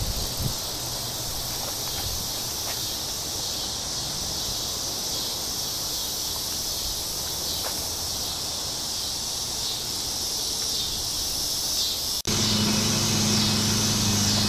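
A steady, high-pitched chorus of insects calling outdoors. About twelve seconds in, a click is followed by a low steady hum that joins the chorus.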